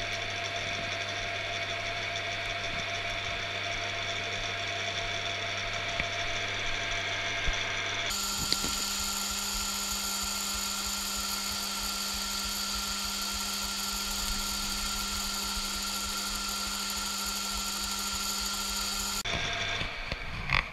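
Metal lathe running steadily, a motor and gearbox hum with steady tones, while the tool faces the end of an aluminium blank. The hum changes its tone abruptly about eight seconds in and switches back near the end.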